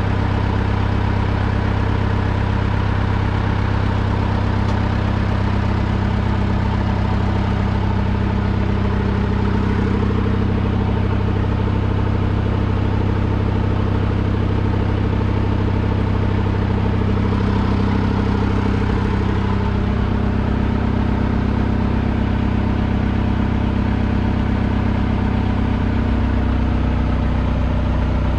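An engine idling steadily, an even low drone that barely changes.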